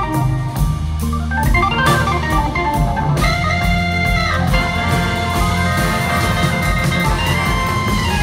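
Live rock band playing an instrumental passage led by organ, with electric bass and a drum kit underneath.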